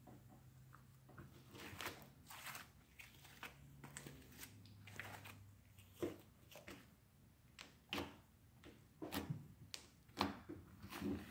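Butter slime being stretched, squeezed and pressed by hand, making irregular soft squishes and sticky clicks and pops, louder and more frequent in the second half.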